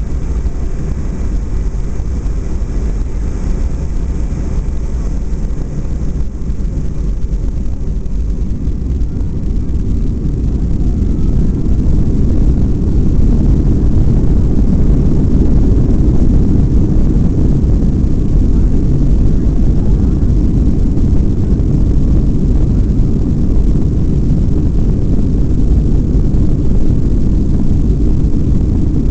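Boeing 757-200 jet engines heard from inside the cabin, rising to take-off power about ten to twelve seconds in, then a loud steady rumble as the airliner accelerates down the runway on its take-off roll.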